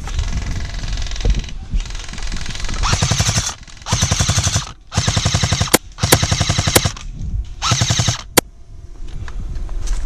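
Airsoft guns firing on full-auto: after a first stretch of steady fire come about five separate rapid bursts, cut by short pauses, with a few sharp single cracks among them.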